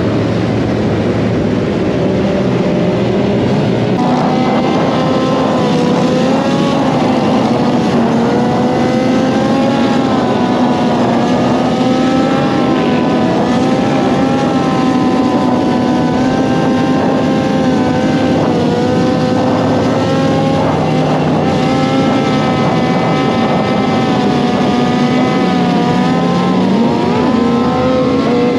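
Motorcycle engine running while riding, its revs rising and falling gently and never dropping to idle, over a steady rush of noise.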